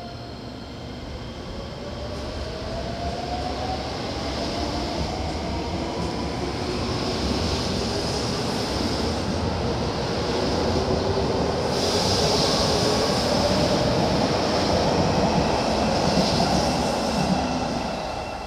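Seibu 20000 series electric commuter train accelerating away from a station: the whine of its VVVF inverter and traction motors climbs in pitch while the wheel and running noise grows louder as the cars pass, then falls away near the end as the last car clears.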